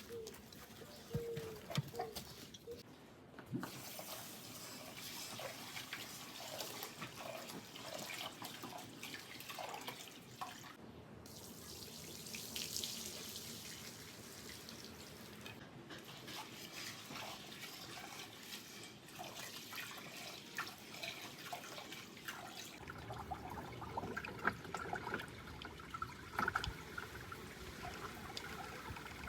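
Water running and splashing, with scattered small clicks and knocks throughout.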